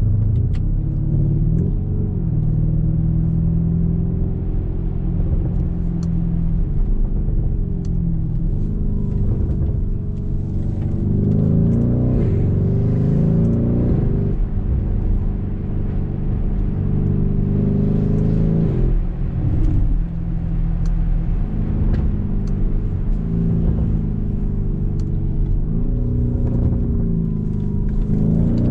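Twin-turbocharged 4.0-litre V8 of a performance SUV accelerating hard, its pitch climbing and dropping back several times as it shifts up through the gears.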